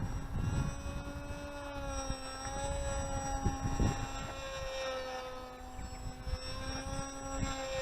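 Rambler-X FPV flying wing's motor and propeller giving a steady whine at about half throttle, its pitch wavering slightly as it flies past. Gusty wind rumbles on the microphone underneath.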